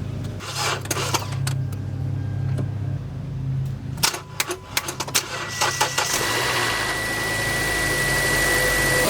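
A few clicks, then a 2012 Kia Soul's 2.0-litre four-cylinder engine starts about five seconds in and settles into a steady run, with a thin steady high tone alongside. It is being started off a jump pack because the battery no longer holds enough charge to crank it.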